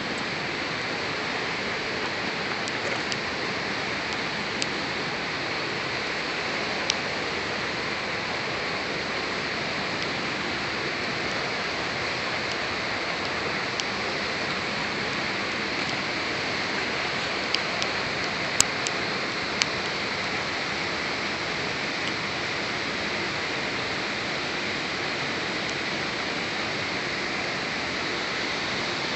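Steady, even rushing noise with no pitch, with a few sharp clicks scattered through it, the loudest about two-thirds in.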